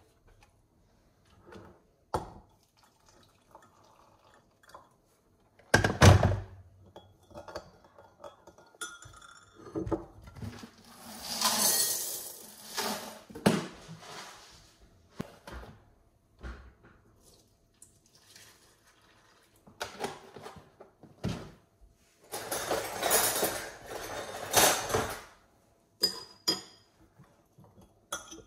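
Coffee being made in a glass mug with a metal teaspoon: scattered clinks of the spoon on glass and thunks of things set down on the counter. Liquid is poured into the mug in a longer noisy stretch about twelve seconds in, with another noisy stretch of handling or pouring a little after twenty seconds, and the coffee is stirred with the spoon near the end.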